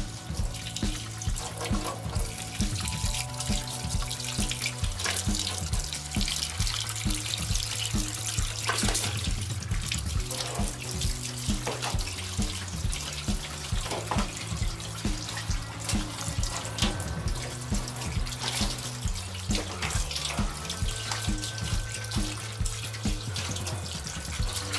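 Tap water running and splashing into a stainless steel sink over a gutted trout held under the stream, flushing out the blood line along its backbone. Background music with a steady beat and a bass line plays throughout.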